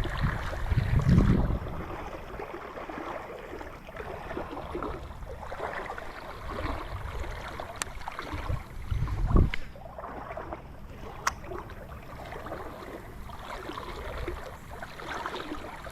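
Swollen river current rushing steadily, with low rumbles near the start and again around nine seconds in, and two sharp clicks.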